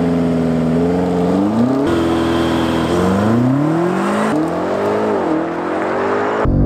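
BMW M5 Competition's 4.4-litre twin-turbo V8 at full throttle, accelerating hard from a launch-control start. Its note rises through the revs and drops back at each quick upshift of the 8-speed automatic, several times over.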